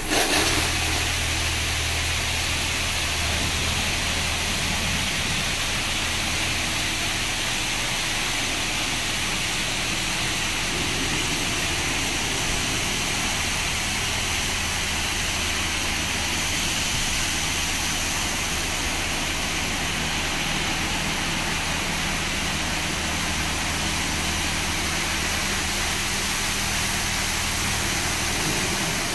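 Touchless car wash spray arm blasting a car with high-pressure water: a steady, loud hiss of spray that switches on suddenly at the start, over a steady low hum.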